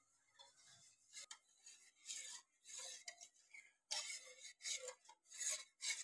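Metal spoon scraping and grating around the bottom of a stainless steel saucepan, stirring sugar and water in faint repeated strokes about twice a second. The sugar is still undissolved; this stirring dissolves it for the syrup.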